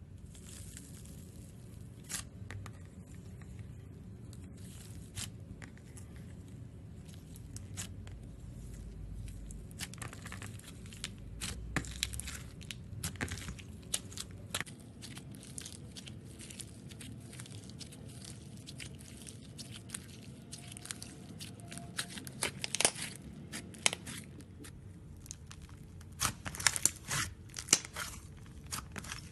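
Floam (slime packed with tiny foam beads) being squeezed and pulled by hand, giving irregular crackles and pops, with denser clusters of pops in the last few seconds.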